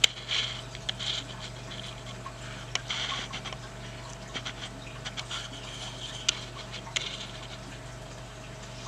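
Small objects being handled and searched through on a workbench: scattered light clicks and scratchy rustles, with a steady electrical hum underneath.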